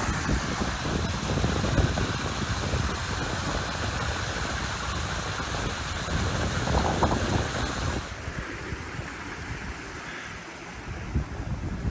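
Wind buffeting the microphone: a gusty low rumble under a steady rushing hiss. The hiss cuts out abruptly about eight seconds in, leaving a quieter rumble.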